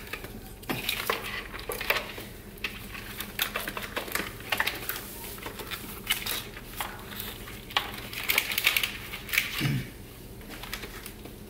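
Irregular clicks, light knocks and rustling as a fuel rail carrying its injectors is handled and pressed into place on an LQ4 V8's intake manifold.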